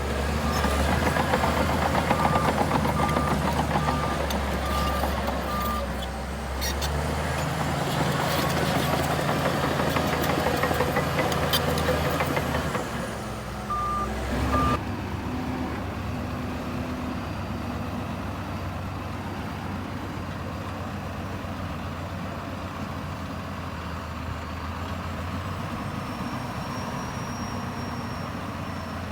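Heavy diesel earth-moving machinery running, with a reversing alarm beeping about one and a half times a second for the first six seconds and twice more near the middle. After that the engine drops to a quieter, steady run.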